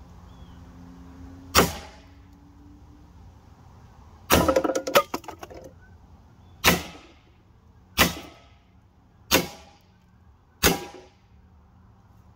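AEA HP SS Plus .25 calibre PCP semi-automatic air pistol firing at tin cans: a single sharp crack, then about four seconds in a burst of several rapid cracks and clatter, then four evenly spaced shots about a second and a third apart, each with a short metallic ring.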